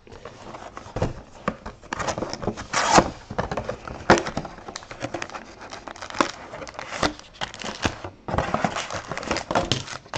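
Plastic wrapping and trading-card pack wrappers being torn open and crinkled by hand, an irregular run of crackles and sharp rips that starts suddenly.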